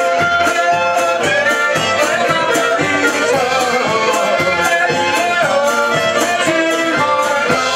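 Live folk band playing: a fiddle melody over strummed banjo and guitars with a steady beat, and voices singing along.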